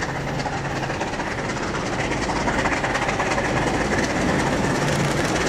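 Mainline steam locomotive approaching at the head of its train, its exhaust and the train's running noise growing louder.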